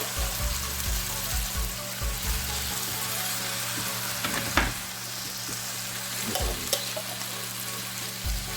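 Chicken tikka jalfrezi sizzling in a hot pan, a steady frying hiss, just after fresh garlic cooked in butter has been stirred in. A few sharp clicks come near the middle.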